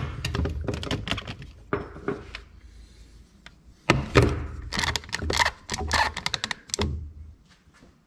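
Rapid metal clicking and knocking of a 19 mm wrench working the ball joint's castellated nut on a lower control arm, in quick runs about a second in and again from about four to seven seconds in.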